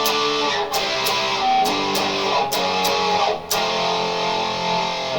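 Single-pickup hardtail Squier Sonic Stratocaster electric guitar strumming chords: a quick rhythmic run of about eight strums, then a chord left ringing for the last couple of seconds.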